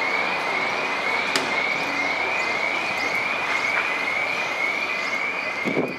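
Electronic emergency-vehicle siren on yelp, a short rising whoop repeating about twice a second, over steady city traffic noise.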